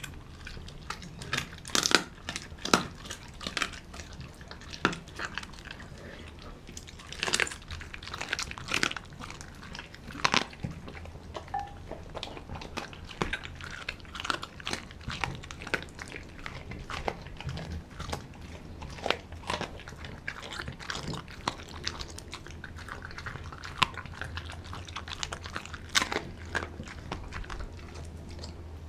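A Doberman chewing raw meat: irregular wet bites and sharp crunches as her jaws work a piece of raw chicken, with no steady rhythm.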